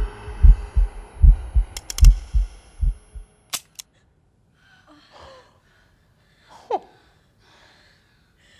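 Suspense sound design: a pounding heartbeat effect over a swelling drone, cut off by a single sharp click of a pistol dry-firing on an empty chamber. Near silence follows, with a few faint gasping breaths.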